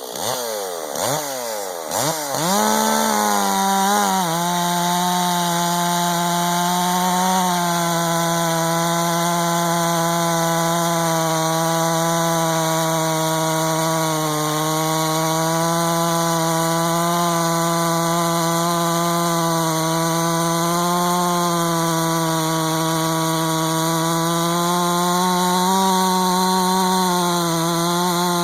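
Stihl MS440 70.7 cc two-stroke chainsaw with a dual-port muffler, blipped a few times with quick falling rev sweeps, then held at full throttle in a long cut through wood, its high steady note wavering slightly under load.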